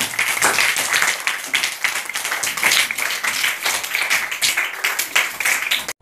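A group of children clapping, many hands at once in a dense patter; it cuts off suddenly near the end.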